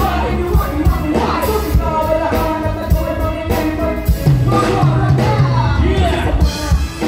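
Live band playing loud through a PA system, with drum kit, keyboard and electric guitar, and a voice singing or rapping over the music into a microphone.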